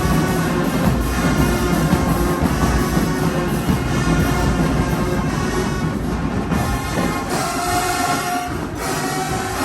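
Marching band playing, heavy on brass and low drums, ending on long held brass chords in the last couple of seconds.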